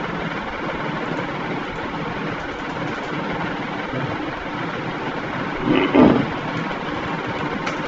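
Steady background rumble, like a running motor or distant traffic, with one brief louder sound about six seconds in.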